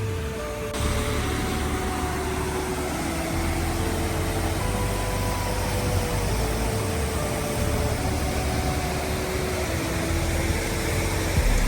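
Background music, a slow melody of held notes over a moving bass line, laid over a steady rushing noise.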